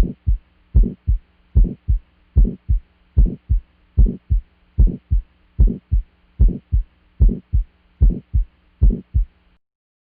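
Human heart sounds: a steady lub-dub rhythm of about 75 beats a minute, each beat a louder first sound (S1) followed closely by a softer second sound (S2), with quiet gaps between beats. A faint steady hum runs underneath, and the beating stops near the end.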